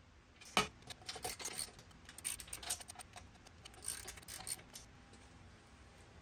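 Hand socket ratchet clicking in short irregular runs as a bolt is snugged into the chassis, starting about half a second in and stopping about a second before the end.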